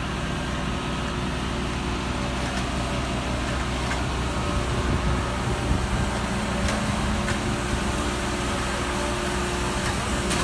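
Farm tractor engine running steadily alongside the machinery of a cabbage harvesting and coring trailer, with a few faint sharp clicks.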